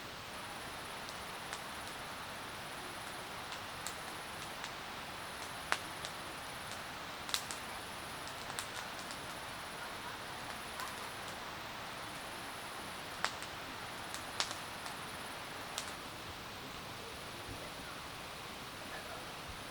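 Wood campfire crackling: a dozen or so sharp pops and snaps scattered over a steady hiss.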